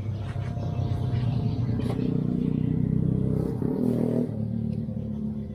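Small motorcycle engine running, getting louder from about two seconds in and falling back a little after about four seconds.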